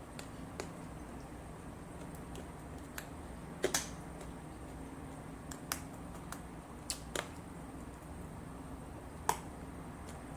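A person eating crispy fried tilapia: about half a dozen sharp clicks of eating, a second or two apart, over a steady low hum.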